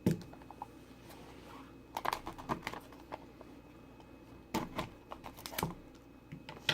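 A trading-card hobby box being handled and opened: scattered light clicks, taps and rustles of cardboard and packaging, in a few short clusters.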